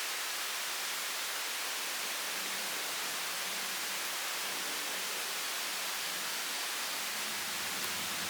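Steady, even hiss of static at a constant level, strongest in the high range, with no distinct handling knocks.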